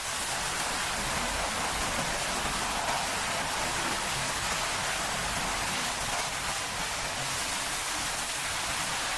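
Rain from a hurricane falling steadily: an even hiss with no gusts or breaks.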